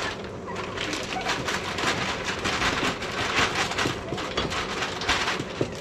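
Plastic bag of frozen corn crinkling and rustling as the corn is shaken out into a stock pot of boil water, a dense run of small crackles throughout.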